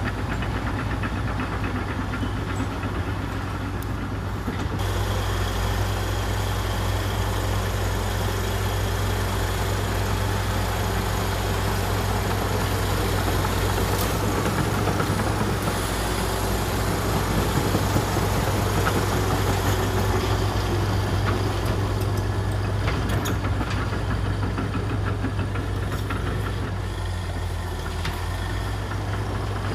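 Komatsu D61EX bulldozer's diesel engine running steadily, a constant low drone that gets a little louder about five seconds in.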